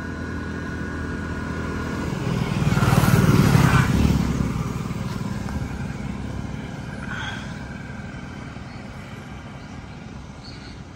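A motor vehicle passes close by on the road, its engine noise rising to a peak about three seconds in and then fading away.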